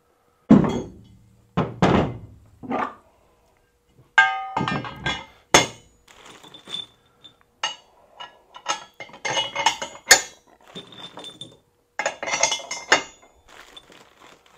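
Steel gooseneck hitch parts being handled: three heavy thunks as the square-tube cross members and brackets are set down and knocked together, then a ringing metal clink, then a run of small clicks and rattles as bolts and nuts are fitted.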